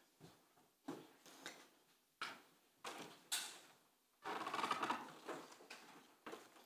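Camera shutters clicking: scattered single sharp clicks, with a rapid run of shutter clicks about four seconds in that lasts under a second.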